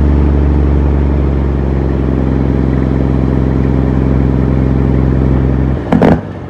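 International 9900 dump truck's diesel engine running steadily while the truck stands still. Near the end the engine note cuts off and a short, loud burst of noise follows.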